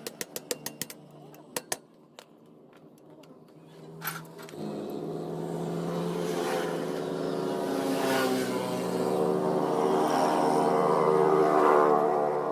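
A quick run of even clicks that fades out, then after a short lull a motor starts up and runs, growing steadily louder.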